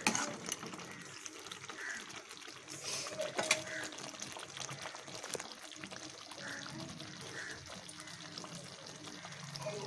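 Thick chicken gravy simmering in a pan, bubbling with a steady crackle of small pops. There is a sharp click near the start and another about three and a half seconds in.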